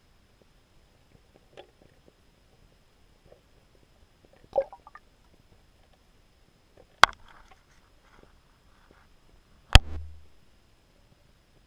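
Muffled knocks and clicks picked up underwater beneath an ice hole: a short scraping rattle about four and a half seconds in, then two sharp clicks, about seven and nine and a half seconds in, the second followed by a brief low thud.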